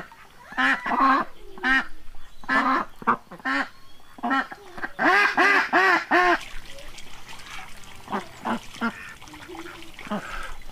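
Domestic ducks quacking in short, repeated calls, with a quick run of about five quacks in the middle and fainter calls near the end.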